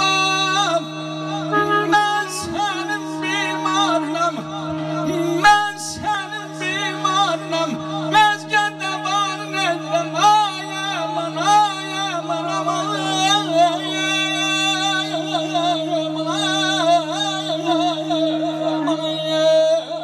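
A man sings a slow, heavily ornamented Azerbaijani wedding song into a microphone, his voice wavering and sliding between notes over a steady sustained instrumental drone, amplified through a PA system.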